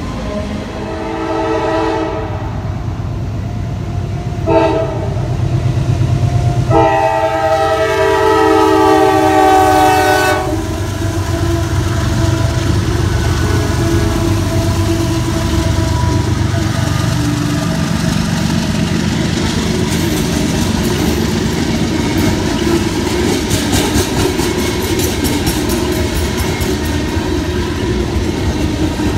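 Freight train passing a grade crossing: diesel locomotive horn blowing several blasts, the longest from about seven to ten seconds in. Then the locomotives' engines rumble past, followed by the freight cars rolling by with a steady clickety-clack.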